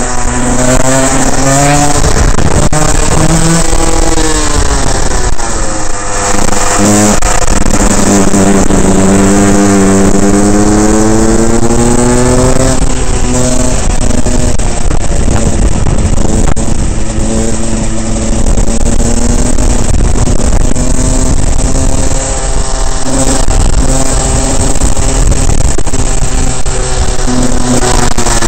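Rotax 125 two-stroke kart engine heard from onboard under way, its pitch rising as it pulls out of corners and falling as it slows for the next. The longest climb comes about a third of the way in, followed by a sharp drop, then shorter rises and dips.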